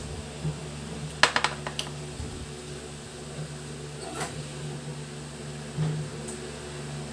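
Steady hum of an electric fan, with a quick run of sharp clinks about a second in as a drinking glass is set down on the table, and a short rattle and a dull knock later on.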